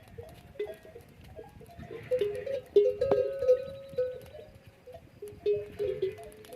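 Bells worn by a herd of camels clinking irregularly as the animals move, densest in the middle, over wind rumbling on the microphone.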